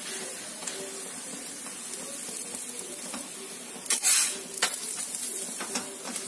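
Oil sizzling steadily under a koki flatbread shallow-frying on a heavy tawa. A steel spatula scrapes and presses against the pan a few times, loudest about four seconds in.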